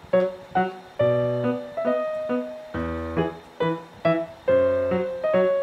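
Background music: a light, bouncy piano or electric-keyboard tune with separate plucked-sounding notes and a bass line.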